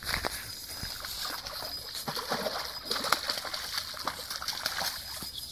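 A hooked carp splashing in the shallows at the river's edge as it is reeled in, in irregular splashes.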